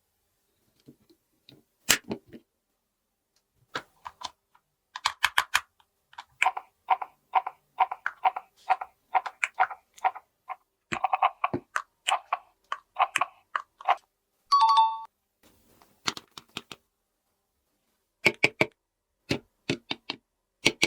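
Hard plastic toy doctor-kit pieces clicking and tapping as they are handled, in quick runs of small clicks, with a short electronic beep from the toy about fifteen seconds in.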